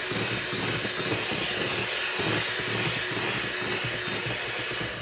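Electric hand mixer running steadily, with a steady motor whine, its beaters whipping egg whites and sugar in a stainless steel bowl: meringue being beaten to stiff peaks.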